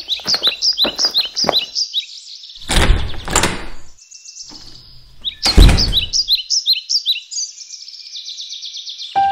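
A songbird singing runs of quick, high, down-slurred chirps, about four a second, in two bursts. Between them come a couple of low thumps, the second the loudest sound.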